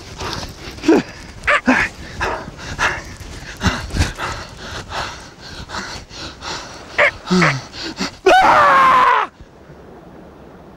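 Staged attack by a small animal: a frantic run of short snarls, yelps and scuffling thuds, ending about eight seconds in with a loud drawn-out shriek that cuts off suddenly.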